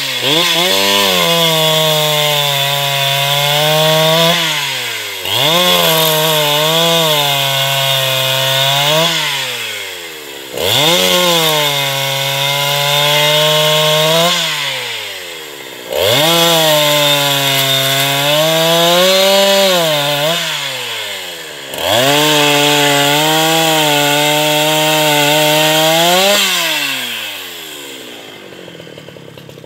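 Hyundai H865 two-stroke chainsaw cutting through logs five times. Each time it revs up, its pitch sags a little as the chain bites into the wood for about four seconds, then drops back as the cut finishes. After the last cut, a little before the end, it falls to a quieter idle.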